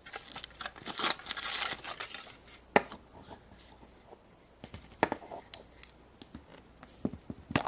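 Toy packaging being opened by hand: rustling and tearing of a wrapper for about the first two seconds, then several separate sharp clicks and knocks as plastic pieces are handled.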